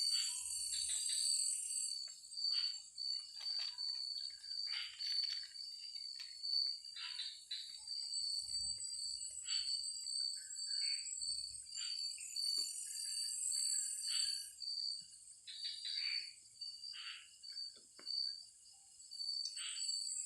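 Forest insects chirping in a steady high pulsing chorus, with frogs giving short calls now and then.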